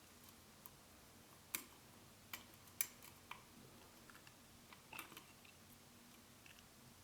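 Faint, scattered clicks and light scrapes of a lock pick and tension wrench working the pins of a small six-pin tumbler cam lock through its narrow keyway. There are irregular single clicks with no steady rhythm; the sharpest comes about three seconds in.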